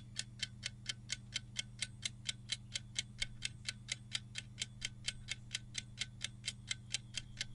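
Countdown-timer sound effect: a ticking clock, with quick, even ticks about four a second over a steady low hum.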